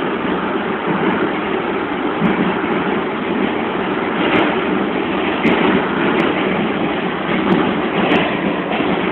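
Pullman Standard R46 subway car running at speed through a tunnel, heard from inside the car: a loud, steady rumble of wheels on rails and running gear, with several sharp clicks from about four seconds in.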